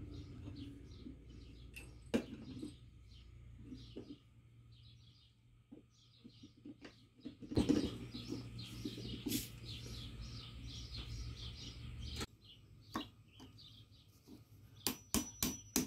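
Small birds chirping over and over in the background, with scattered metallic clinks and one louder clatter as cast lead sinkers are handled and broken off their casting strips. Near the end a hammer starts tapping on the lead, about three strikes a second.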